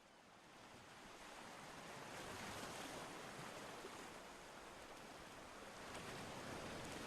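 Steady rushing of water, fading in over the first two seconds or so and then holding level.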